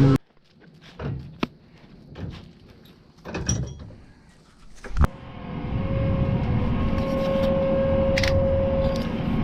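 Scattered clicks and knocks, then a sharp thump like a door shutting about five seconds in, after which a vehicle's engine runs steadily with a steady humming tone.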